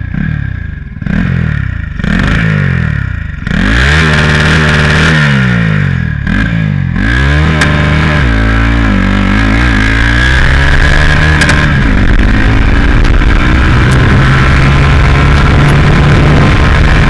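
Turbocharged Honda Titan 160 single-cylinder motorcycle engine under way, revving up and dropping back repeatedly through the gears for the first several seconds, then running more steadily at higher revs. The turbo is not building boost.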